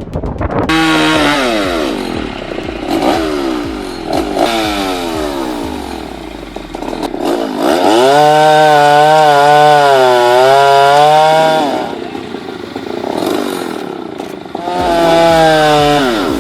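Chainsaw revving up and down in quick blips, then held at high revs for about four seconds with its pitch wavering, dropping back, and revving up again near the end.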